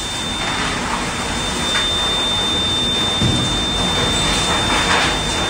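Steady roar of tornado-storm wind and rain heard inside a damaged building, with a thin, steady high tone running through it.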